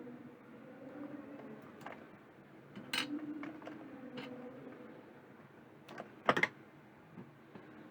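Scattered small clicks and taps of small cable parts and tools being handled on a work surface, with the sharpest pair of clicks about six seconds in, over a faint steady hum.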